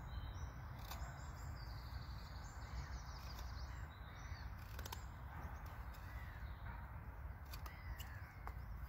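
A knife carving small notches into a wooden stick, heard as a few sharp clicks, against woodland ambience with birds calling.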